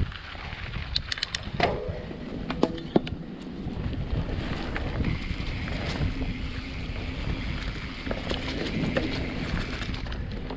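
Mountain bike rolling over gravel and onto a dry, leaf-covered dirt trail: tyre noise and drivetrain and frame rattle, with wind buffeting the microphone. A cluster of sharp clicks and rattles comes between about one and three seconds in.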